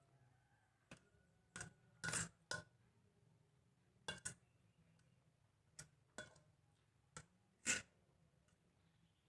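Cutlery clinking and tapping against a plate or bowl while noodles are eaten: about ten short, irregular clinks, a few with a brief ring, the loudest near the end.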